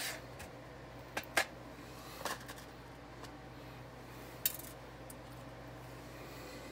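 Light metallic clicks and clinks of small carburetor parts and hand tools being picked up and handled, as the hairpin clip for the choke rod is fetched from a metal parts tray: about five short scattered taps over a faint steady low hum.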